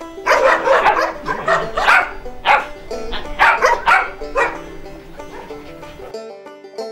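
A group of dogs barking over and over, a bark about every half second, over background music. About six seconds in, the barking cuts off and only the music carries on.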